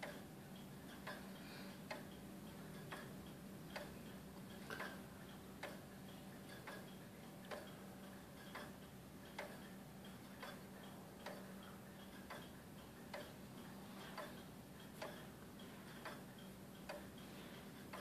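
Winterhalder grandmother clock's escapement ticking steadily and faintly, about one tick a second.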